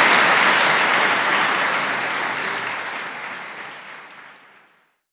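Audience applauding, the applause fading out steadily until it is gone near the end.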